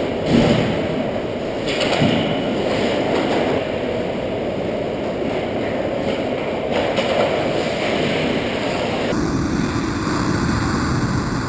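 Ice hockey play picked up by a camera on the goal net: a steady rumble and scrape of skates on ice, with a couple of short knocks about a third of a second and two seconds in.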